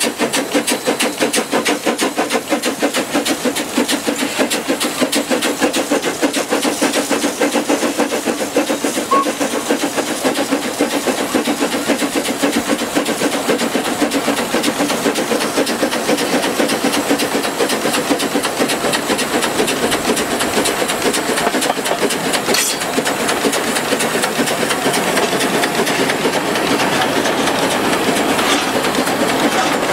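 Steam locomotive Bello working along the line, with a fast, steady exhaust beat over the hiss of steam and the clatter of the train. It grows slightly louder near the end, and there is a single sharp click about two-thirds of the way through.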